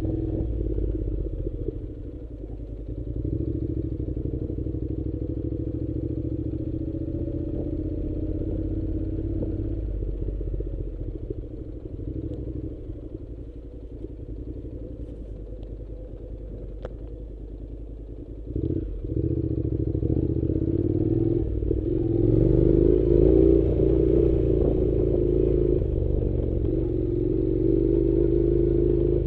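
An engine running steadily, its pitch drifting a little. It eases off for several seconds in the middle and grows louder again over the last third.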